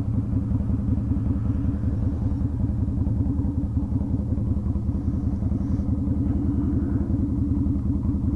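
Yamaha Virago XV250's small air-cooled V-twin, fitted with a custom exhaust, running steadily at low revs as the motorcycle slows and comes to a stop.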